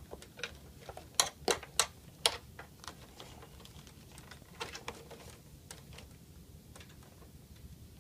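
Sharp clicks and light rattling of plastic cable connectors being handled and pushed into their sockets inside a synthesizer, with four loud clicks in quick succession about a second in and fainter clicks a few seconds later.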